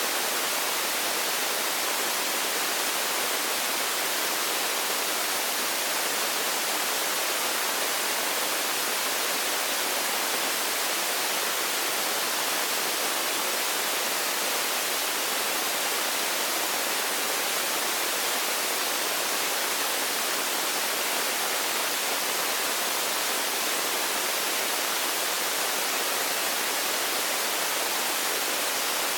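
Steady, even hiss like static or white noise, strongest in the high range, with no change in level.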